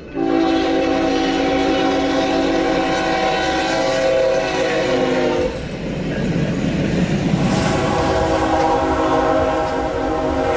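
A train's air horn blowing a long, steady chord of several notes at once. It stops about five and a half seconds in, leaving the rumble of the moving train, then sounds again for the last three seconds.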